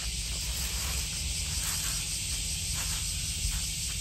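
Steady high hiss of a summer cicada chorus, with a cat faintly lapping water from a bucket in short irregular licks.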